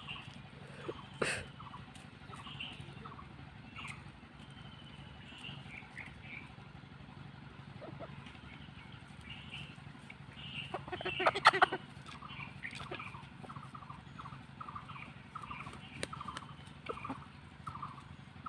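Chickens feeding, with frequent short soft clucks and calls and one louder burst of calling a little past the middle. A sharp click about a second in, over a faint steady low hum.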